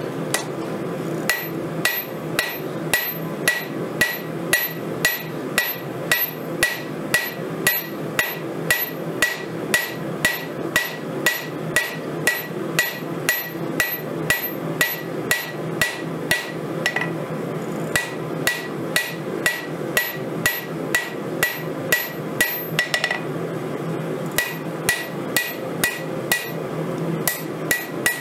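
Hand hammer forging a bar of hot steel on a Vevor 132-pound steel anvil, about two blows a second, each with a high metallic ring from the anvil. The hammering stops briefly twice, over a steady background noise.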